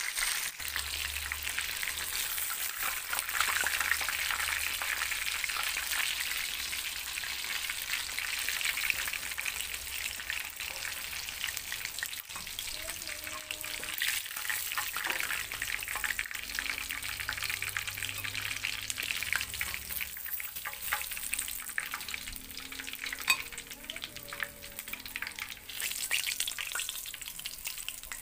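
Chicken pieces frying in hot oil in a wok: a steady, dense crackling sizzle with many small pops.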